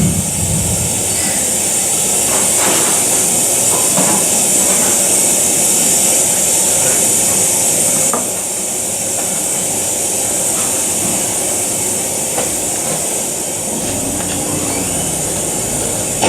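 Steady, loud hissing noise, strongest in the high range, with scattered faint clicks and knocks; it drops a little in level about eight seconds in.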